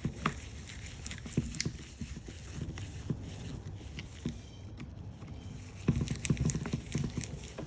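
Small clicks and knocks of a screwdriver and the plastic case of a Snap-on cordless ratchet being handled while the case screws are driven back in. The knocks come scattered, then in a denser, louder cluster near the end.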